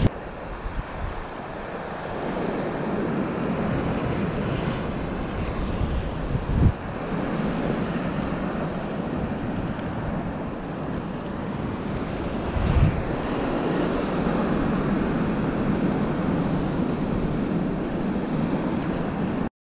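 Wind buffeting the microphone over choppy open sea, with the steady wash of water around the kayak. Two brief louder gusts hit about a third and two thirds of the way through, and the sound cuts off suddenly just before the end.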